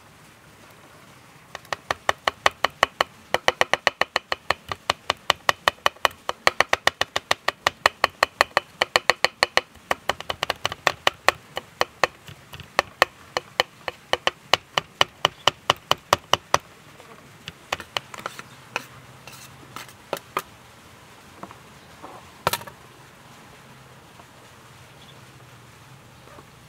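Large knife chopping garlic on a wooden cutting board: quick, even chops, about four a second, for some fifteen seconds. Then a few scattered knocks, one louder near the end.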